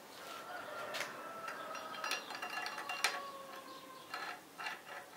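Steel rod of a screw press sliding and turning in a new camshaft bushing of a cast-iron D115 engine block: metal scraping with a faint ringing squeal and a few sharp clinks, about one, two and three seconds in.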